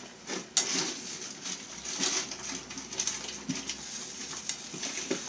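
Scrambled eggs sizzling in oil and butter in a nonstick frying pan, a steady hiss that grows louder about half a second in, with a plastic slotted spatula scraping and pushing the eggs around the pan.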